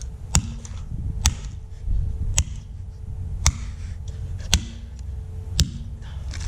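Hammer striking a Timex alarm clock six times at an even pace about a second apart, each blow a sharp crack followed by a brief low ring.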